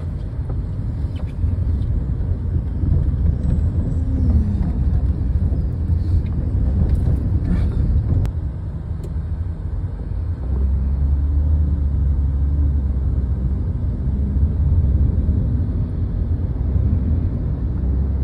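Steady low rumble of a vehicle's engine and road noise, heard from inside a moving vehicle in city traffic. The rumble grows steadier and stronger about ten seconds in.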